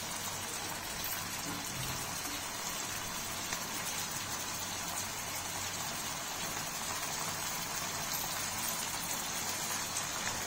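Onion, tomato, capsicum and shredded cabbage frying in oil in a pan: a steady sizzle.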